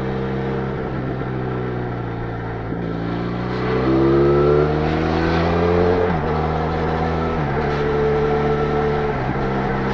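Benelli Leoncino 500's parallel-twin engine through its stock exhaust, heard from the bike while riding. The revs climb for about three seconds, then the pitch drops in steps about three times as it changes gear.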